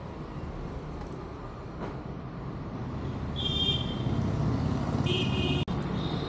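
Low road-traffic rumble growing louder, with two short toots of a vehicle horn about a second and a half apart.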